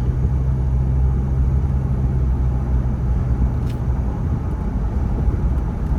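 Turbocharged vehicle engine and road noise heard from inside the cabin while driving, a steady low hum.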